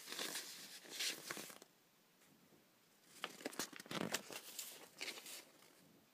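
Sheets of printed paper rustling and crinkling as they are handled and shuffled, in two bursts: one lasting about a second and a half at the start, another from about three seconds in until about five and a half seconds in.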